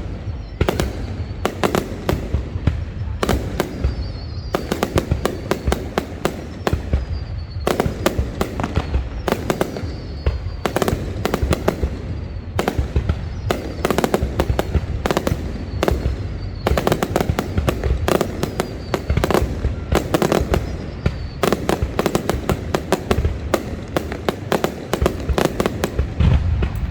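Fireworks going off in a dense, unbroken string of sharp bangs and crackles, several a second.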